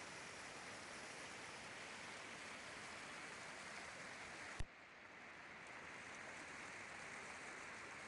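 Water rushing over rocks in shallow river rapids, a steady even hiss. About halfway through comes a single sharp click, and the hiss is quieter for a moment after it.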